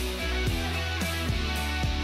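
Instrumental background music with a regular beat.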